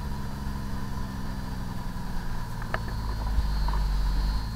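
Fire apparatus engine running, heard from inside the cab. Its low rumble grows louder about halfway through and drops back just before the end. There is a single short click near the middle.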